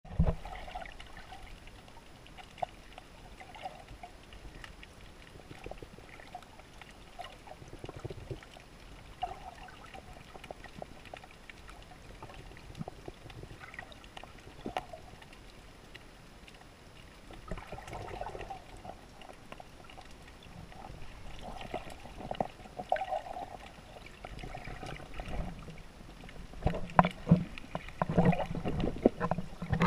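Underwater water noise picked up by a submerged camera: a low, muffled wash with scattered faint clicks. It grows louder and splashier over the last few seconds as the camera is handled and moved.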